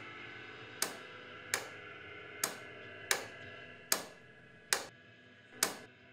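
Sharp, echoing ticks about one every 0.8 s, slightly uneven, over a faint sustained musical drone that stops about four seconds in.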